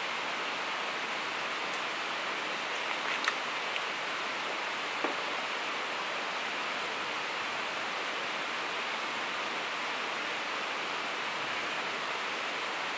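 Steady rushing of a shallow river running over rocks, with two faint brief clicks about three and five seconds in.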